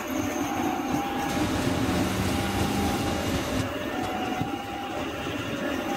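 KRL electric commuter train running on the tracks: a steady rumble of wheels on rail, with faint steady tones that come and go.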